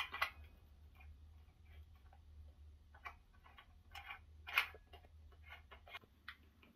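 Faint, irregular small clicks and taps of metal hardware being handled: knob bolts and washers fitted and turned on an aluminium pot lid, with one louder clack a little after halfway.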